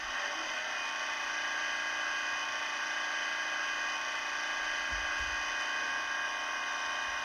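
Sound decoder of a Roco H0 model of a DB class 218 diesel locomotive playing its air-compressor sound (function F9) through the model's small loudspeaker: a steady buzz, starting to fade near the end.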